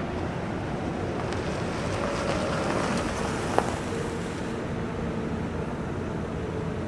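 A small hatchback car driving up over a gravel lot and stopping, its tyre and engine noise swelling about two seconds in and fading out by about four and a half seconds, with one sharp click partway. Steady wind noise on the microphone throughout.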